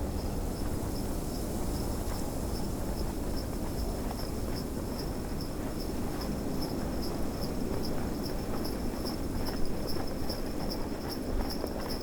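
Sleigh bells jingling in a quick steady rhythm, getting louder about halfway through, over the steady low rush of snowstorm wind.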